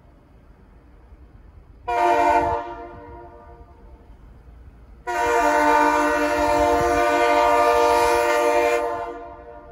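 Multi-chime air horn of a Finger Lakes Railway GE B23-7 diesel locomotive: a short blast about two seconds in, then a long blast of about four seconds that fades out, the closing short-and-long of a grade-crossing signal.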